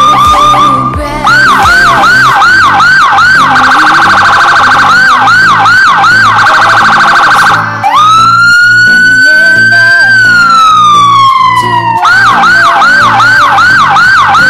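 Electronic vehicle siren cycling through its tones. It opens on a brief steady tone, runs a rapid yelp of about three sweeps a second, then gives one slow wail that rises for about two seconds and falls for two, and goes back into the rapid yelp near the end.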